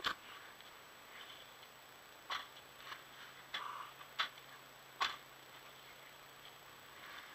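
About six sharp, irregular clicks and knocks over a faint steady low hum.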